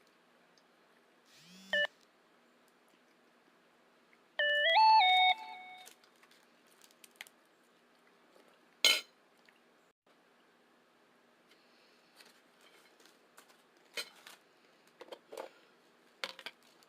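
An electronic device gives a short beep, then a few seconds later a brief, loud chime of three rising notes. A sharp click follows about halfway through, and a few faint clicks come near the end.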